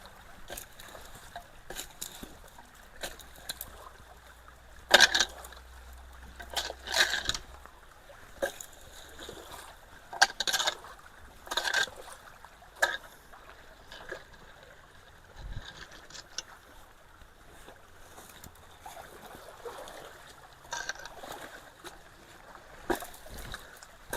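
Creek water splashing and sloshing in irregular bursts as debris is dragged out of a clogged culvert, over the steady sound of flowing water. The loudest splash comes about five seconds in.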